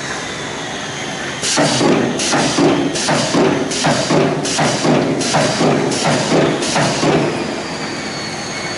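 Gantry-type multi-head spot welding machine working through a series of about eight welds, one every three-quarters of a second, each a short loud burst, over a steady factory hum.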